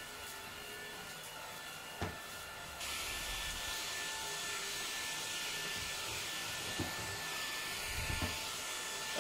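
Cordless Dreame stick vacuum running: a steady motor whine with a rushing suction hiss. The hiss gets louder about three seconds in, and there is a brief click about two seconds in.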